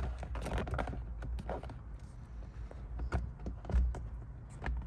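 Plastic trim covers being handled and pressed into place: scattered, irregular clicks and knocks of plastic on plastic.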